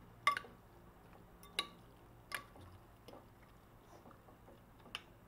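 A metal fork and spoon tossing raw fish kilawin in a ceramic dish, clinking against the dish four or five times, the first clink the loudest, with quiet wet mixing between.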